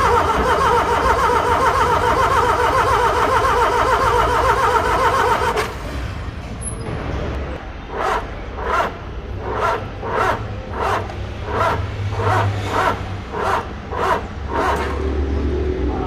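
Starter motor cranking a four-cylinder car engine for about five and a half seconds without it catching: the engine will not start. A few seconds later comes a run of about ten sharp, evenly spaced clicks, roughly three every two seconds.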